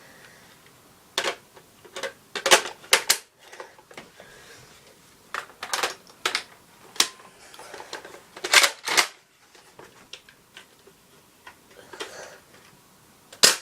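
Nerf Recon CS6 dart blaster being handled in its assault-rifle setup: a series of sharp plastic clicks and clacks at uneven intervals, some in quick pairs.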